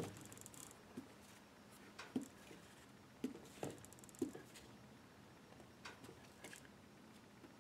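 Faint, irregular soft taps of a Versamark watermark ink pad being dabbed across a paper napkin glued to card, about nine light knocks spread unevenly through the quiet.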